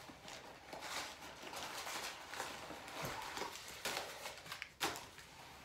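Packing material being pulled out of a tall platform boot, rustling and crinkling in irregular bursts with small clicks, the sharpest crackle a little before the end.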